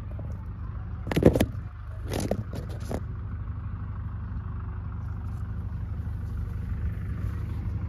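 Steady low rumble of wind on the microphone, broken by brief clattering rustles about a second and two seconds in, the first the loudest.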